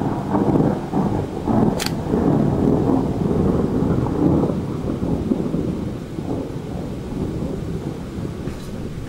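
Thunder rolling: a long, low rumble that is loudest in the first few seconds and then slowly dies away. About two seconds in there is a short sharp click.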